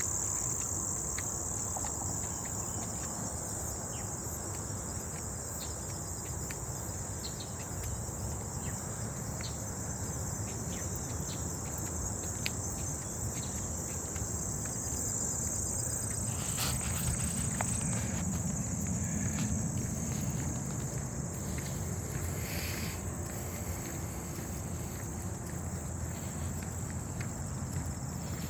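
A steady, high-pitched chorus of insects trilling without a break, over a low, even background noise.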